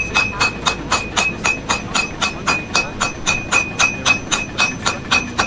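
Rapid, evenly spaced metallic strikes, about four a second, each with a short ringing tone.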